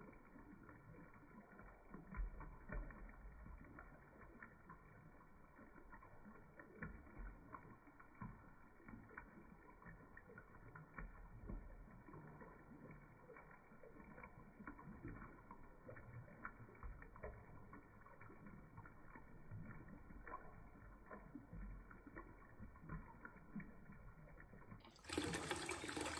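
Hot-spring water splashing from a bamboo spout into a stone foot-bath basin, with feet stirring the water, slowed down so it sounds faint, low and muffled. About a second before the end it jumps suddenly back to normal speed, louder and brighter.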